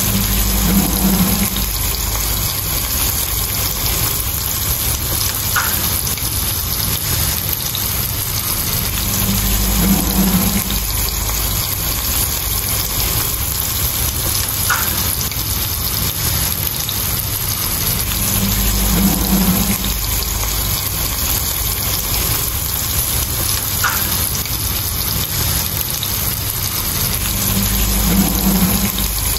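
Sardines shallow-frying in hot oil on a flat iron pan, a steady loud sizzle with bubbling. A brief low rumble recurs about every nine seconds.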